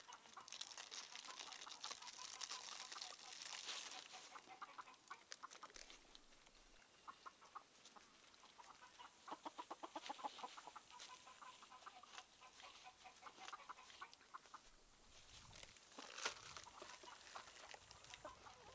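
Chickens clucking faintly, with a quick run of clucks about halfway through. A plastic snack wrapper crinkles over the first few seconds.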